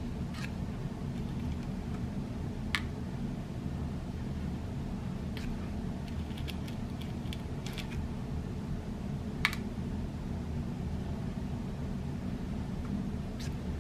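Small metallic clicks of .177 lead airgun pellets being picked out of a tin and set down on, and lifted off, the metal pan of a digital pocket scale: separate clicks every few seconds, a run of light taps around six to eight seconds in, and the sharpest click at about nine and a half seconds, over a steady low hum.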